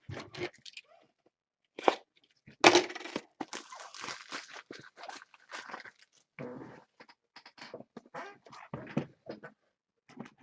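Baseball cards and foil pack wrappers being handled: irregular crinkling, rustling and clicking, with the loudest crackle just under three seconds in.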